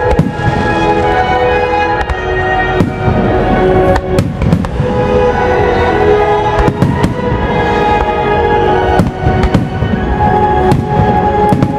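Aerial firework shells bursting: repeated sharp bangs at irregular intervals, over loud music with sustained notes.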